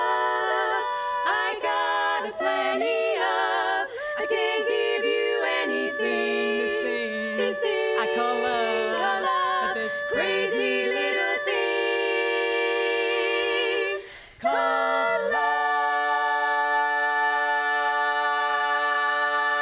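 Women's barbershop chorus singing a cappella in close harmony, bringing the song to its end. The chords move until a short break about 14 seconds in, then one long final chord is held.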